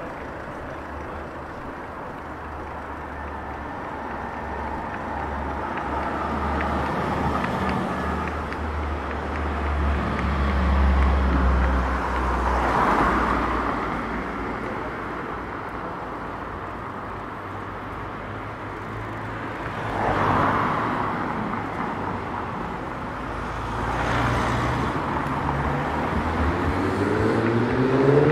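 City street traffic: a steady rumble with several cars passing one after another. Near the end one engine pulls away with a rising note.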